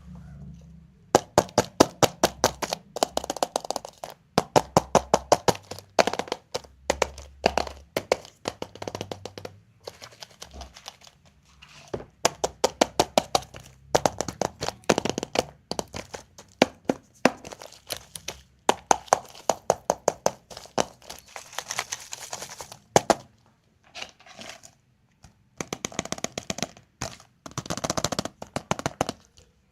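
Surprise eggs and their packaging being cracked open and handled by hand: fast runs of sharp cracks and clicks in bursts of a few seconds, with short pauses between them.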